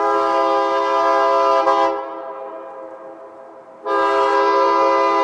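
Train horn sounding two blasts: the first about two seconds long, trailing off, and a second starting about four seconds in and held steady.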